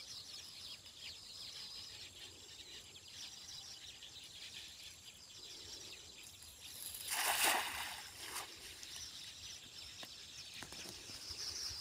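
A cast net thrown into a muddy ditch lands with a brief splash about seven seconds in, with a smaller splash just after, over a faint steady high-pitched outdoor background.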